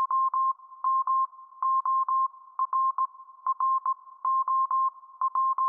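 An electronic beep tone, steady in pitch, keyed on and off in quick short and longer beeps, mostly in groups of two or three, like Morse code.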